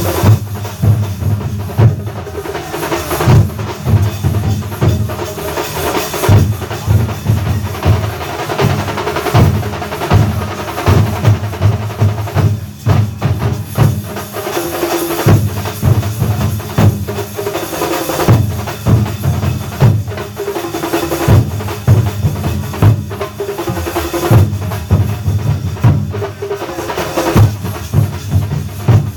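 Thambolam melam drum band playing: a continuous, fast rhythm of deep bass-drum beats with sharper drum strokes over them.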